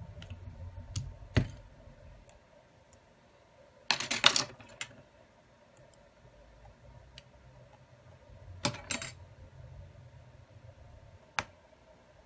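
Clicks and handling noise from a disassembled Xiaomi Redmi Note 10S being worked on with fingers and tweezers: a sharp click about a second in, two louder half-second bursts of handling noise around four and nine seconds in, and another click near the end.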